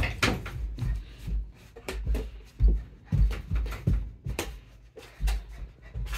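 Irregular thumps and knocks of a small rubber basketball: the ball hitting a mini hoop and bouncing on a hardwood floor, mixed with a child's running footsteps on the boards.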